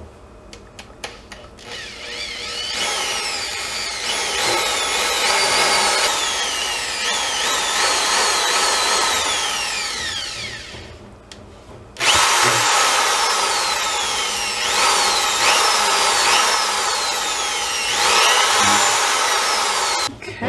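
Corded electric drill spinning a whisk attachment to mix soap batter, its whine sweeping up and down in pitch. It runs for about eight seconds, stops for a moment, then starts again abruptly and runs until just before the end. A few light clicks come before it starts.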